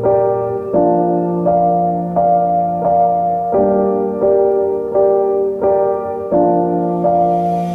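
Background music: a gentle piano or electric-piano track playing sustained chords that change about every three-quarters of a second.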